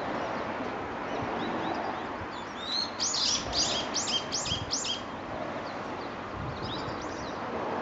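A small bird singing a quick run of about six bright, high chirps about three seconds in, with a few fainter calls before and after, over a steady background hiss.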